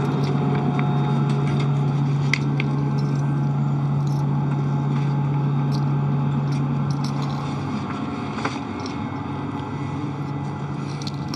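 Steady drone of the International Space Station's cabin ventilation fans and equipment, with a strong low hum that drops away about two-thirds of the way through and a few light clicks and knocks.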